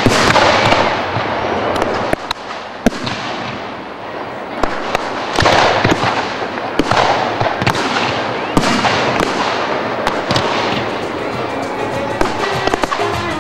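Firecrackers going off in a dense crackling string, with sharp bangs scattered all through it. Music starts near the end.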